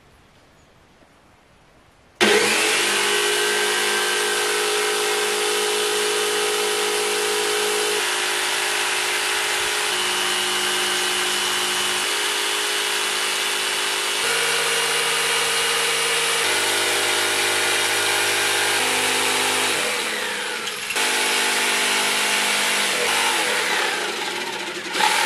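Corded jigsaw switched on about two seconds in and running steadily as its blade cuts through a thin wooden board. The motor slows briefly a few seconds before the end, then picks up again.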